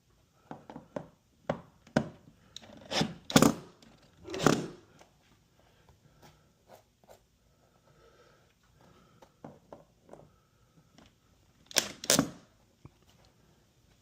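Irregular knocks, clicks and short scraping strokes of hand work with tools and materials, loudest in a cluster a few seconds in and again near the end.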